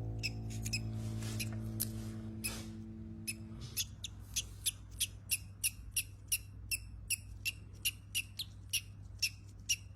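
Baby parrot chick cheeping in short, high peeps, about three a second, while soft background music fades out in the first few seconds.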